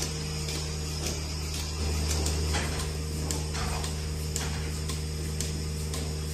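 A steady low machine hum holding several fixed tones, with scattered faint clicks and knocks over it.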